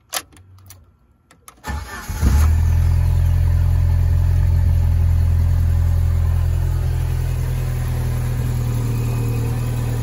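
1994 Jeep Wrangler YJ engine cranking for only a moment and firing about two seconds in, then idling steadily without a high idle. The instant start follows replacement of the ECM's failed capacitors.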